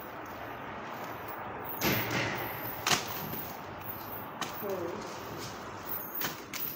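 Packaged food being rummaged through in a plastic wheelie bin: rustling of wrappers and scattered knocks, with a louder rustle about two seconds in and a sharp knock about a second later.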